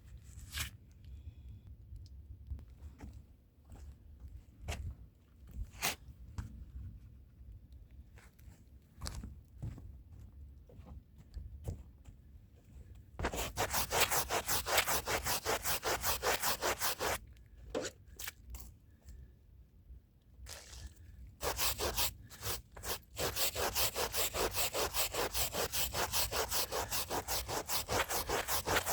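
Hand brush scrubbing a rug in rapid back-and-forth strokes. The strokes start about halfway through, stop for a few seconds, then resume. Before that there are only scattered soft taps and rustles.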